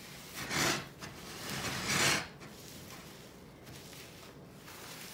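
Paper towel rubbed against a glass jar of salt-preserved lemons: two rustling wiping strokes, about half a second in and about two seconds in.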